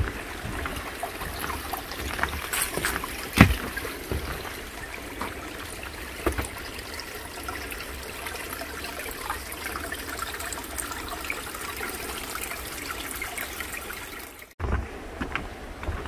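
A small forest stream trickling over rocks, with occasional light knocks and one sharper knock about three and a half seconds in; the sound briefly cuts out near the end.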